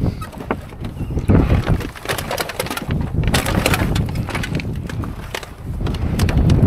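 Wind buffeting the microphone in an uneven low rumble, with scattered clicks and knocks throughout.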